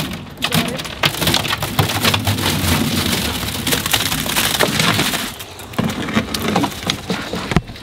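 Wet concrete sliding off a tipped wheelbarrow and slopping onto a rebar grid in a countertop form, a gritty, spattering pour that is thickest through the middle seconds and thins out after. A sharp knock sounds near the end.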